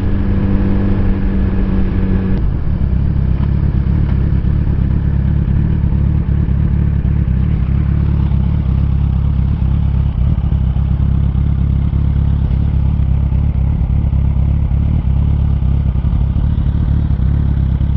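Suzuki Hayabusa's inline-four engine running under way, its note dropping about two and a half seconds in and then holding steady at a lower pitch.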